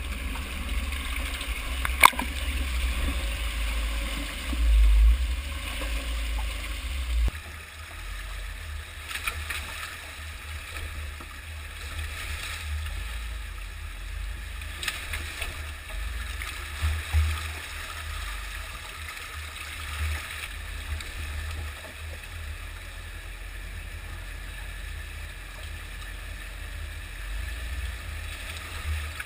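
Shallow creek water gurgling and splashing around a Jeep Wrangler JK's tires as it crawls over rocks, over a constant low rumble. A sharp knock comes about two seconds in, and the splashing is louder for the first several seconds, then settles.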